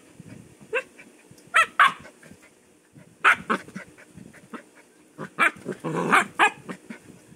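Siberian husky giving short play barks and growls while play-fighting with a person's hand: about eight quick calls in clusters, with a longer, rougher growl about six seconds in.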